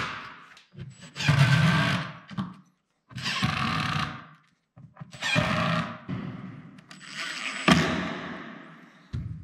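Makita cordless impact driver running screws into particle-board cabinet panels, in four bursts of one to three seconds each. A sharp knock comes in the last burst, near the end.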